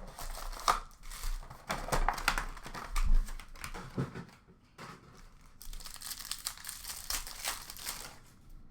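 Foil hockey card pack wrappers being torn open and crinkled. Sharp crackles and rips fill the first four seconds or so, then a softer rustle follows.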